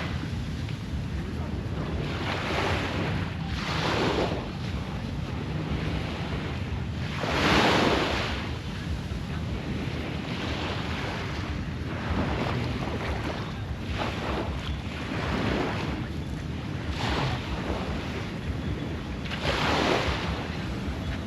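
Surf washing up on a beach in repeated swells every few seconds, the biggest about seven seconds in, over a steady low rumble of wind on the microphone.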